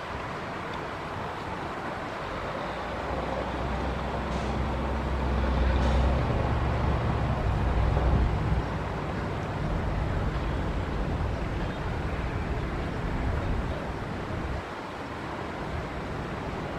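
Diesel engine of heavy earthmoving machinery running. Its deep rumble builds a few seconds in, is loudest around the middle, then eases back to a steady run.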